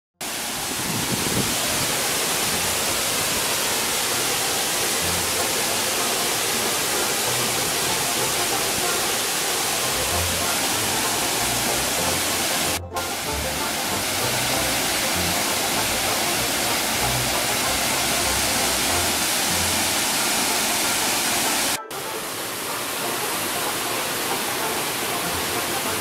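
Rushing water of a forest waterfall and stream, a steady loud hiss. It drops out for an instant twice where the footage is cut.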